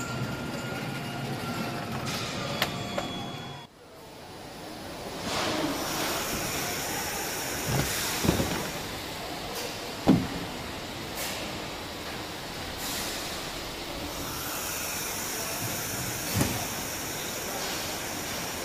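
Car assembly-line noise: a steady hiss of machinery with a few sharp clunks and knocks, the loudest about ten seconds in. It drops away briefly a few seconds in, then resumes.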